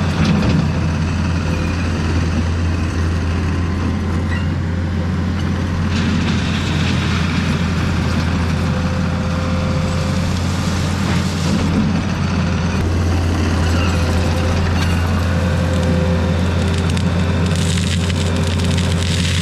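Heavy earthmoving machine's engine running steadily with a constant low hum.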